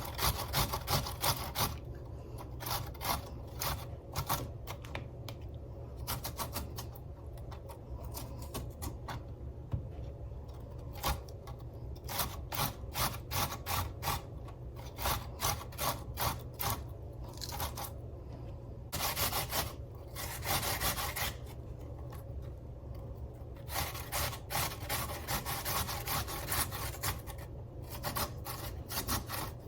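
Peeled, seeded cucumber being grated by hand on a grater: runs of quick rasping strokes with short pauses between them.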